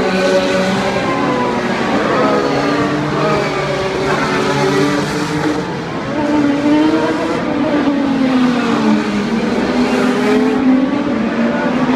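Several IndyCar race cars' twin-turbo V6 engines running at once at racing speed, their overlapping pitches rising and falling as the cars accelerate and lift.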